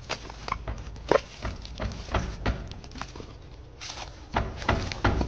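Footsteps crunching on dry leaf litter and twigs: irregular short crunches and clicks, with a few louder ones about a second in and near the end.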